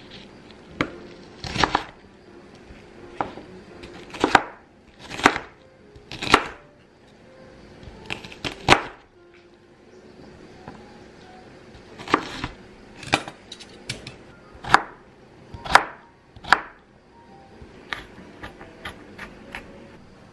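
Kitchen knife chopping an onion on a wooden cutting board: irregularly spaced sharp knocks of the blade striking the board, with a quicker run of lighter taps near the end.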